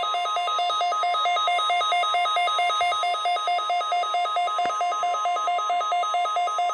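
NOAA Weather Radio's steady 1050 Hz warning alarm tone sounding for the required weekly test, with a second alarm warbling rapidly between a low and a high pitch over it.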